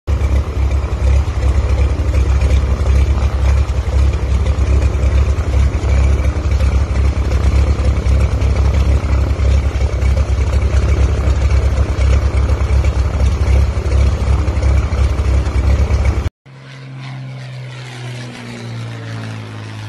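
Cessna single-engine piston plane's engine running close by with its propeller turning, loud and steady. It cuts off suddenly about sixteen seconds in, and a quieter steady drone follows from a Cessna flying overhead.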